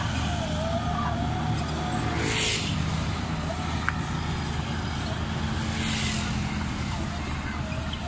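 Heavy diesel engines of a Caterpillar D6R bulldozer and a Hino 500 dump truck running steadily. Two short hisses come about two seconds and six seconds in.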